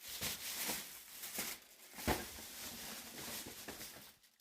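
Plastic snack packaging being handled, a run of rustling and crinkling, with a sharper knock about two seconds in.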